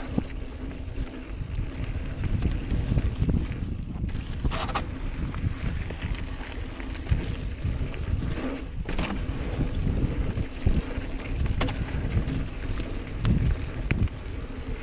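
Wind buffeting the microphone of a mountain bike on the move, a steady low rumble. Sharp clicks and rattles from the bike and tyres on the trail cut through it now and then.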